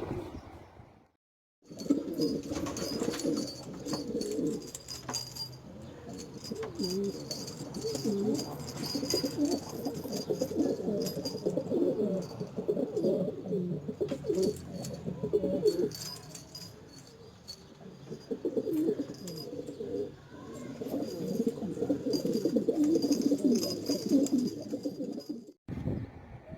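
A flock of domestic kash pigeons cooing, many low overlapping coos with a brief break about a second in.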